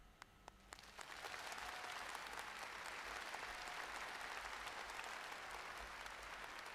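Studio audience applause at the end of a song. A few scattered claps at first, then the applause swells about a second in and holds steady.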